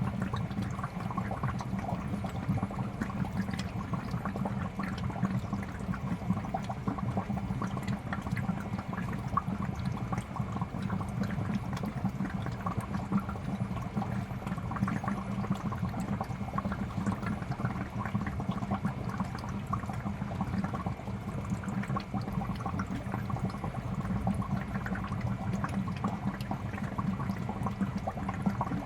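Fish tank air bubbler: a steady stream of bubbles popping and gurgling at the water surface, over the low, steady hum of the aquarium air pump.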